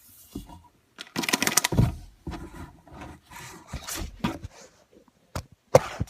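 Rustling and crinkling of snack packaging being handled, in irregular bursts, with a couple of sharp clicks near the end.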